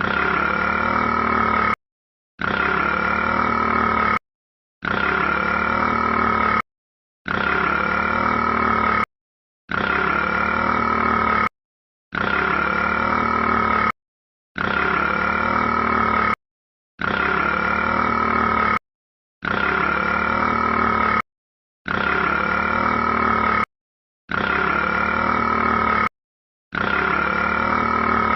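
A long, drawn-out burp of about two seconds, replayed as an identical loop roughly every two and a half seconds, with a short dead silence between repeats.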